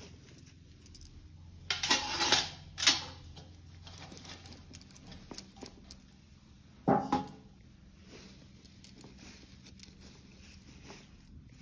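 Fresh fenugreek leaves rustling as a hand turns and spreads them, with a few louder, brief crunches about two, three and seven seconds in.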